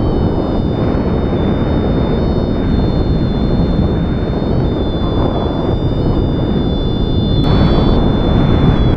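Strong wind buffeting the microphone: a loud, steady, rumbling rush. Above it runs a thin, steady high whine that wavers slightly in pitch and brightens about seven and a half seconds in.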